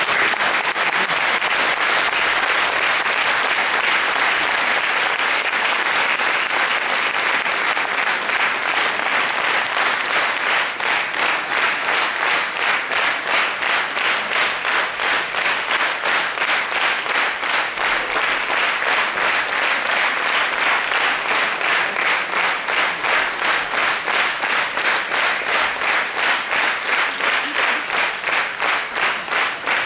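Audience applauding. About ten seconds in, the applause settles into rhythmic clapping in unison with a steady beat.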